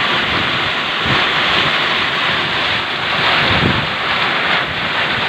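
Strong storm wind blowing hard and buffeting the microphone in gusts, over the steady hiss of heavy rain.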